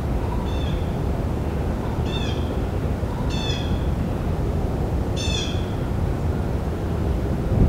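An animal calling: four short, high, nasal calls spaced a second or two apart, over a steady low background rumble.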